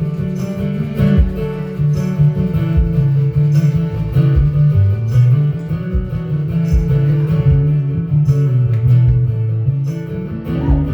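Live band playing with a bass guitar solo: the bass line moves up and down, with drums keeping a steady beat and a guitar strumming underneath.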